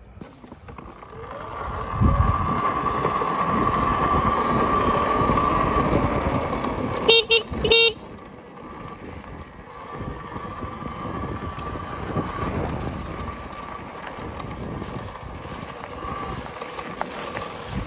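Talaria electric dirt bike riding along a dirt path: a steady motor whine over tyre and wind rumble, loudest in the first half. About seven seconds in there are two short horn beeps just over half a second apart.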